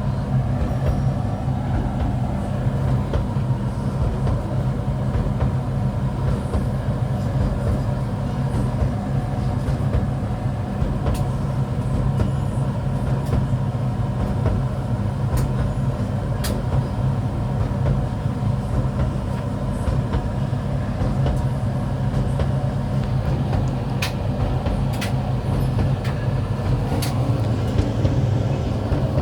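Hoover H-Dry 600 heat pump tumble dryer running near the end of its extra-dry cycle: a steady low hum of the motor and rotating drum, with a few faint clicks here and there.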